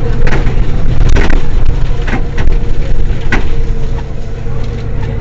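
Mercedes-Benz Citaro city bus's diesel engine idling: a steady low rumble with a steady whine above it, and four sharp knocks along the way.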